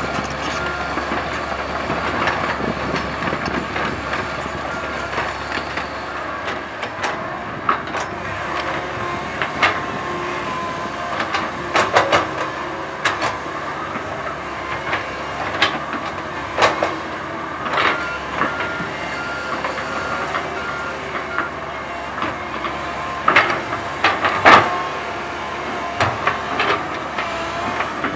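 Komatsu PC130 hydraulic excavator's diesel engine and hydraulics running steadily, with irregular metallic clanks and knocks from the steel tracks and bucket as it spreads and levels soil. A beeping alarm sounds briefly at the start and again about two-thirds of the way through.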